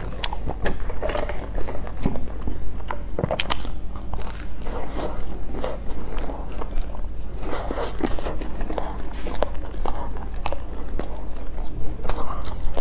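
Close-miked chewing and wet mouth noises of a person eating a soft chocolate bun with a dark filling, with frequent sharp mouth clicks.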